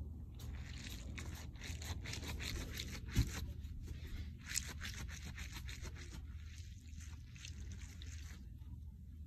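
A bead-filled squishy stress ball (NeeDoh-type) squeezed and kneaded in the hand, giving faint, quick crackling and rubbing noises that stop shortly before the end. There is one low thump a little past three seconds in.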